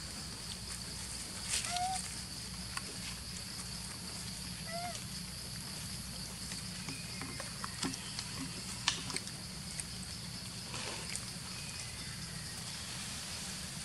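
Outdoor ambience: a steady high-pitched insect drone, with a few short chirps and scattered light clicks.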